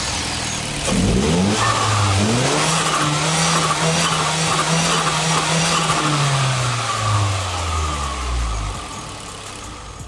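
Turbocharged car engine, with an open cone air filter held over its intake, revved up about a second in and held high for a few seconds, then falling back toward idle. No blow-off valve 'psst' is heard as the revs drop.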